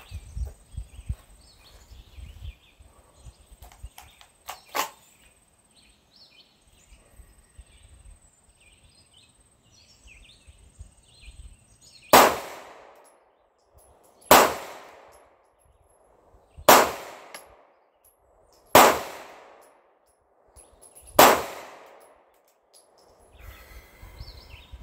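Five slow-fire pistol shots from a SIG P226, spaced about two to two and a half seconds apart, each followed by a short echo. Before them come quiet handling sounds and a single sharp click about five seconds in.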